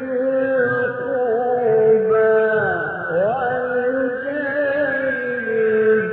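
A man's voice reciting the Quran in the melodic mujawwad style, drawing out long ornamented notes, with one slide down and back up about halfway through.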